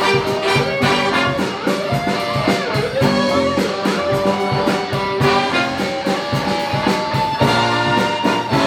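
Jazz big band playing live, with the brass section out front over a steady drum beat. About seven and a half seconds in, the horns swell into a long held chord.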